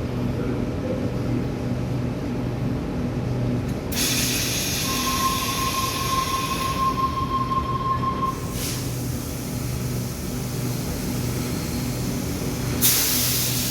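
Electric suburban train at the platform, its low hum running steadily. About four seconds in, a burst of air hiss starts, with a steady squeal sounding for several seconds inside it; near the end comes a second short hiss.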